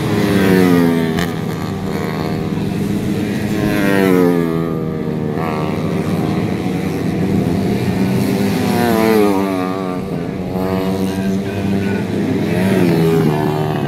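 Four-stroke racing motorcycle engines revving, their pitch rising and falling again and again, with several loud peaks.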